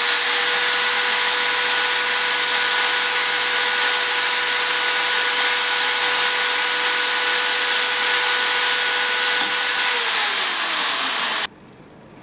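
Electric drill running at a steady speed with its bit held against a smartphone's glass screen, a steady whine over a grinding hiss. Near the end the pitch falls as the drill slows, and it stops abruptly about eleven and a half seconds in.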